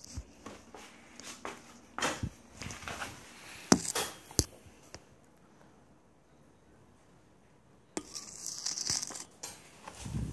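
Camera handling noise: irregular rustling and a few sharp clicks, a quiet spell in the middle, then a longer rustle and a low thump near the end.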